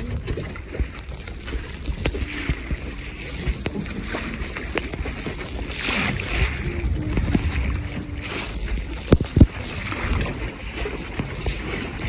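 Wind buffeting the microphone and water rushing and splashing against the hull of a small sailing dinghy under way, with two sharp knocks about three-quarters of the way through.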